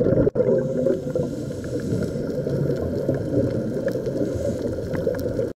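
Muffled underwater noise picked up by a diving camera: a dense, irregular low rumble of moving water. It drops out for an instant just after the start and cuts off suddenly near the end.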